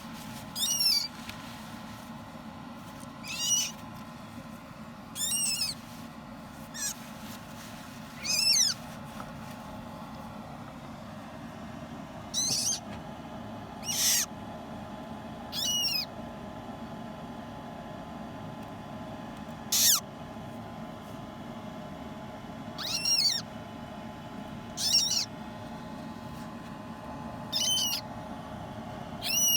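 Newly hatched parrot chick calling: about a dozen short, high-pitched cheeps spaced a few seconds apart, a couple of them harsher and raspy, over a faint steady hum.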